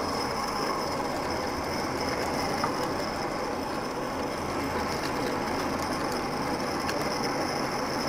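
MX-Cool Aries electric coffee grinder running at its top speed of 150 RPM, its outer burr turning against a static inner burr as it grinds a 20 g dose of coffee beans: a steady grinding noise that holds at an even level.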